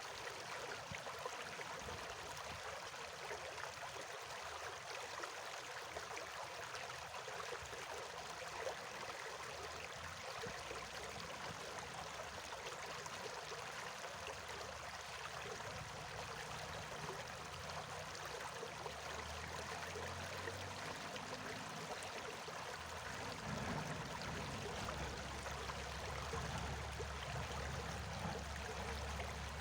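A stream of water flowing steadily, an even rushing sound. A low rumble comes in about halfway and grows stronger near the end.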